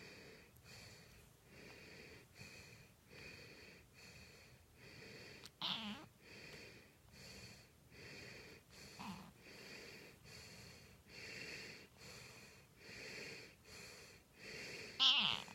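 Rhythmic wheezy snoring, one breath roughly every three-quarters of a second, broken by a cat's short wavering calls about six and nine seconds in and a louder one near the end.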